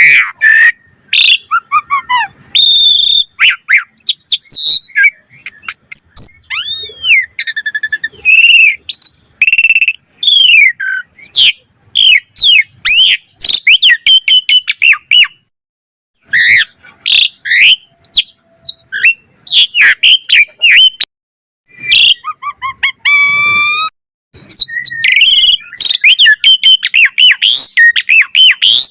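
Asian pied starling (jalak suren) singing a fast, varied song of whistles, chirps and trills, with brief pauses about halfway and two-thirds through and a buzzy, falling call near the end.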